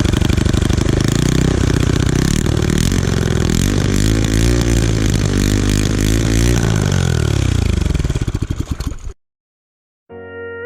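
Go-kart engine running and revving, its pitch rising and falling several times, then dropping in a long falling glide before the sound cuts off suddenly about nine seconds in.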